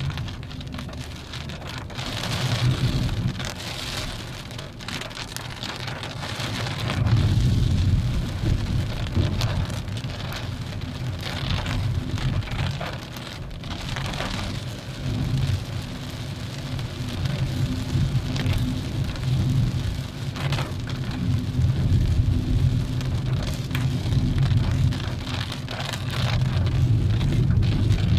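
Volkswagen Vento's 1.2 TSI four-cylinder petrol engine and tyres on the move: a low drone that swells and dips in loudness every few seconds, under a steady hiss with scattered sharp ticks.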